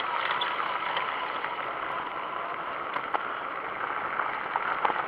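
Fat tyre electric bike riding along a dirt track: a steady rush of tyre and riding noise with scattered small clicks and rattles.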